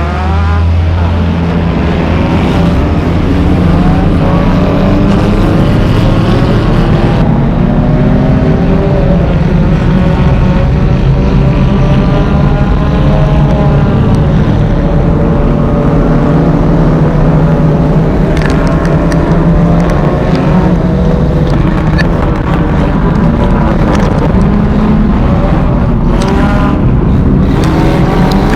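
Race car engine running hard during an enduro race, its pitch rising and falling as the throttle comes on and off, with other cars' engines around it. A few sharp knocks come through about two-thirds of the way in and again near the end.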